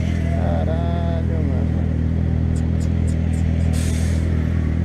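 Motorcycle engine running steadily at idle, with a voice calling out briefly near the start, a few sharp clicks around the middle and a short hiss about four seconds in.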